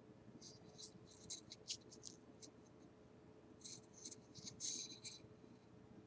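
Faint scratchy rubbing and clicking as fingers handle a dry wooden stick close to the microphone, in two spells of short scrapes, the second about two-thirds through, over a faint steady hum.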